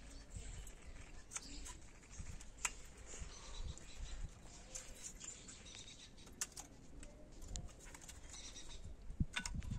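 A few faint metallic clicks from a disc-brake caliper and its pads being handled, over a quiet outdoor background with a bird calling faintly.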